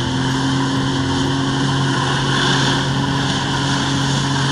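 Jet ski engine running at a steady pitch as it pumps water up the hose to a flyboard, mixed with the rushing spray of the flyboard's water jets.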